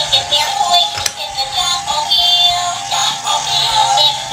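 A battery-operated toy ambulance's sound module plays a tinny electronic sung tune through its small speaker, a stepping melody with little bass.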